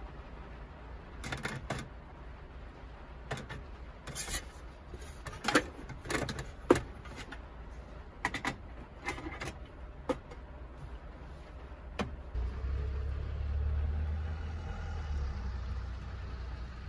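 A run of sharp clicks and knocks, then about twelve seconds in a vehicle engine starts and runs with a low, steady hum.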